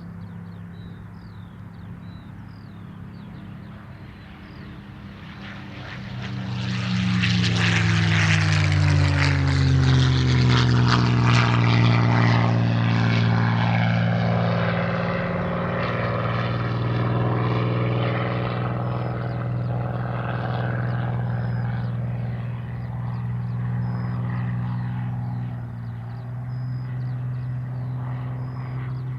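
Supermarine Spitfire Mk IX's Rolls-Royce Merlin V12 engine in flight. It grows loud about six seconds in as the plane passes close, its pitch falling as it goes by, then runs on as a steady drone.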